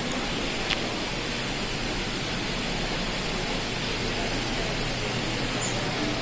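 Steady, even rushing noise in the atrium with no speech, with one small click about three quarters of a second in.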